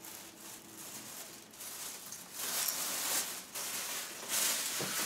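Soft rustling, scuffing noise that comes in uneven patches, louder from about halfway through.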